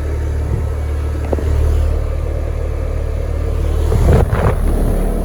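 AirTemp 4-ton central air conditioner outdoor unit running: a steady low hum from its Copeland scroll compressor and condenser fan. A brief rush of noise comes about four seconds in.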